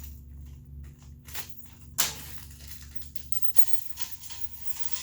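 Hands handling small assembly hardware, such as bolts and washers: a series of light clicks and rattles, with one sharp knock about two seconds in, over a steady low hum.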